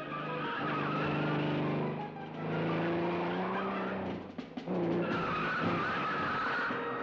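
Car engine revving hard while the tyres squeal through bends: three stretches of long, wavering squeals over the engine note, with brief dips between them.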